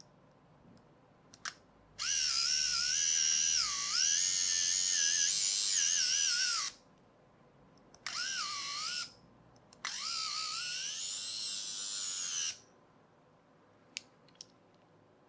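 Small electric motor whining at high speed through its gears in three runs: a long one, a short one and a medium one. The pitch wavers up and down as the speed changes.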